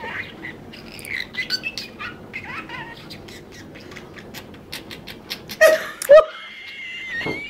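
Pet budgerigar and cockatiel chirping and chattering in quick, short high notes, with two louder calls about two-thirds of the way through and then a held whistle of about a second.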